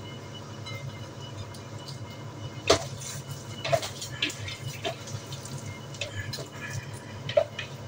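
Liquid poured into a container in a few short glugs and drips, with light knocks, over a steady low hum.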